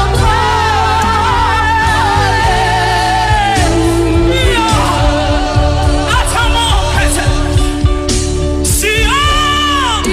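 Gospel worship singing: a voice holding long, wavering notes over sustained keyboard chords and bass.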